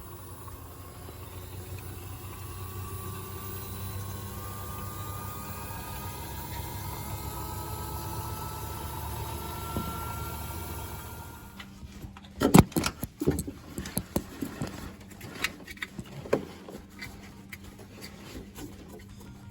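Panasonic drum-type washing machine turning its drum: a steady low hum with a faint rising whine, then from about two-thirds in a run of irregular sharp creaks and knocks. This grinding 'giri-giri' noise as the drum turns is the sign of a stretched drive belt between motor and drum that will soon slip off.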